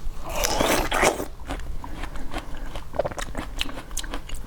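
Crunchy biting and chewing of star fruit: a run of sharp crunches, densest about half a second to a second in.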